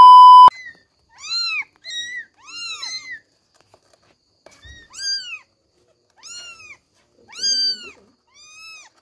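A loud steady test-tone beep for about half a second, then young kittens mewing: about eight high, arching cries, one after another with short gaps.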